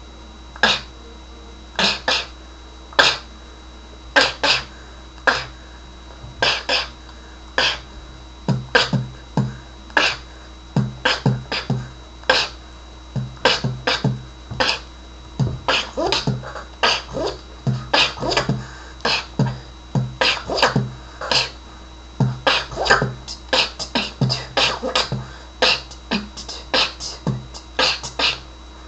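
Solo beatboxing freestyle: mouth-made kick drums, snares and hi-hat clicks. The strokes come a second or so apart at first, then build into a faster, denser beat after about eight seconds.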